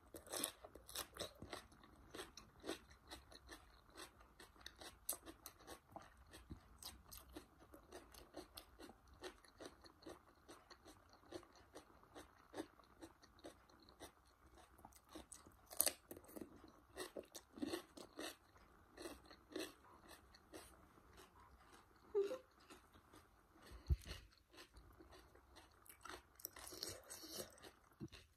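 Close-miked crunching and chewing of raw cucumber: a long run of crisp crunches, with a few louder ones along the way.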